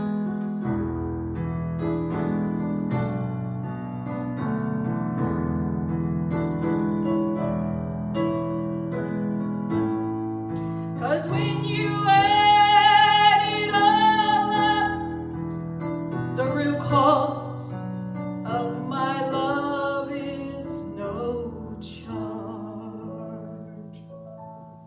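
Piano music, joined about eleven seconds in by a voice singing long held notes with vibrato; the music fades toward the end.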